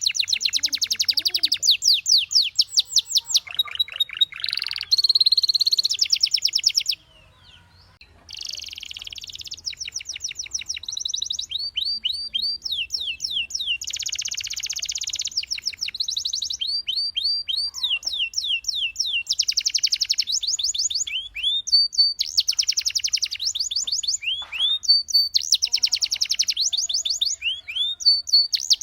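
Domestic canary singing: fast trills alternating with series of repeated rising notes, in phrases of a few seconds. There is a short pause about seven seconds in.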